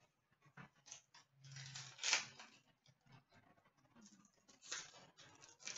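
Faint rustling and light clicks of trading cards being handled and flipped through by hand, with the loudest swish about two seconds in.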